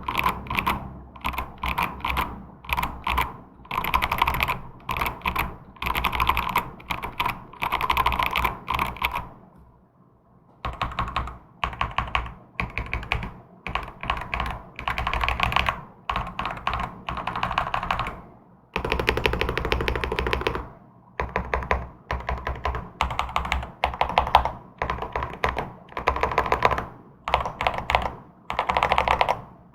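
Typing on a zenzo Black Coral custom mechanical keyboard with Akko Cream Yellow linear switches and a foam-filled, stacked-plate case: quick bursts of keystrokes, with a short pause about ten seconds in.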